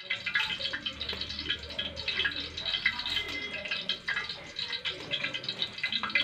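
Banana slices frying in hot oil in an open pan, a steady dense sizzle and crackle.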